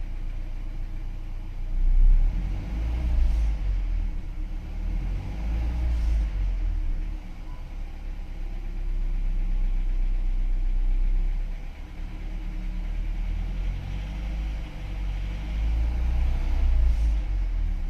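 Renault 1.3 TCe turbocharged petrol engine in a Duster running, its sound swelling and easing several times. The noise comes from a fault in the turbo's wastegate actuator rod.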